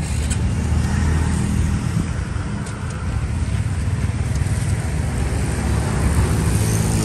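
Motor vehicle engines running in street traffic: a steady low hum with road noise.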